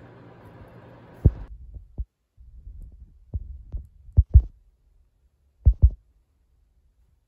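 A steady low hiss that cuts off about a second and a half in, then a run of short, dull low thumps, several in close pairs, before the sound falls almost silent near the end.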